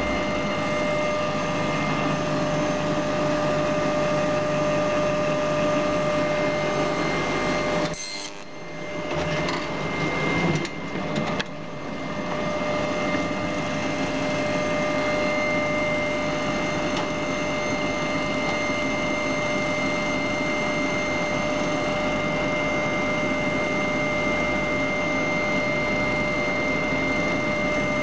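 JBB50B single-clamp glue book binding machine running: a steady mechanical hum with a constant high whine. About eight seconds in, the noise drops away for a few seconds with a couple of knocks, then resumes.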